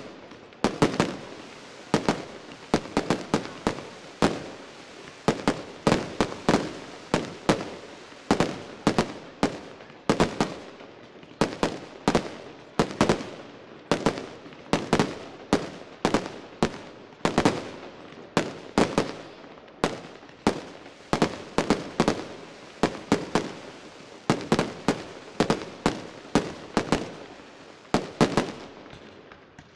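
Aerial firework shells bursting in a steady, irregular barrage: sharp bangs, often two to four in quick succession, each trailing off in an echo.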